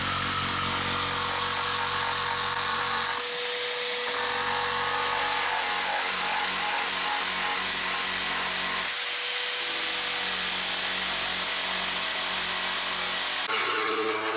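Handheld electric power tool running continuously, its motor note shifting about three seconds in and again about nine seconds in.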